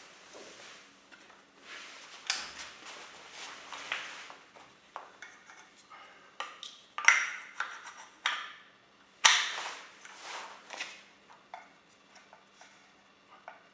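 Hands working on a vacuum cleaner motor and its wiring: irregular clicks, taps and scraping of small metal and plastic parts, with a few sharper clicks in the second half.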